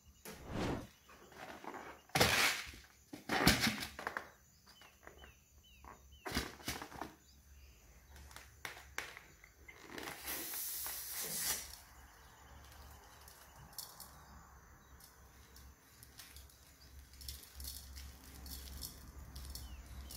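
Hands working scissors on rubber balloons over a plastic bowl: a few sharp knocks and rustles in the first several seconds, then a rush of noise lasting about a second and a half around ten seconds in, as a balloon is cut open over the bowl, followed by quieter handling.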